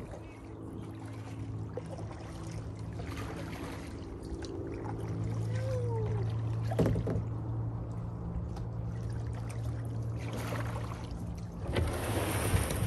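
Plastic kayaks being paddled in to shore, paddle blades splashing, over a steady low motor hum. Near the end comes a loud scraping rush as a kayak's hull runs up onto the gravel bank.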